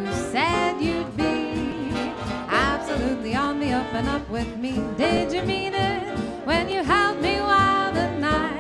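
A live swing jazz band playing with a steady beat. A lead line slides up into many of its notes over the rhythm section.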